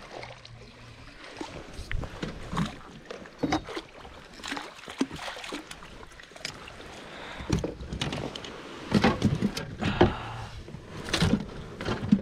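Handling noise on a kayak while a fish is reeled in and netted: irregular knocks and rattles with a little splashing, loudest about nine to eleven seconds in.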